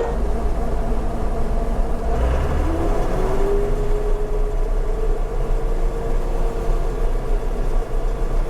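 Combine harvester running under load with a steady machinery hum; a deep low rumble comes in at the outset as the grain unloading starts.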